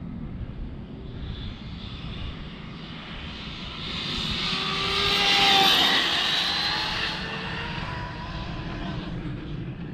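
Arrma Mojave RC truck's sensored brushless motor and drivetrain whining at high speed, growing louder to a peak about five seconds in and then falling in pitch as it fades. A steady low rumble of wind runs underneath.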